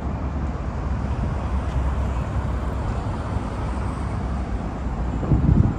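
Steady outdoor street noise, mostly a low rumble, which swells briefly near the end.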